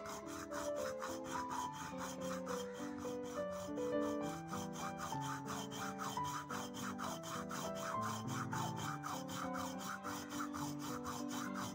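Hacksaw cutting through the fibrous husk of a whole coconut, scraping back and forth in a quick, even rhythm. Background music with held melodic notes plays under it.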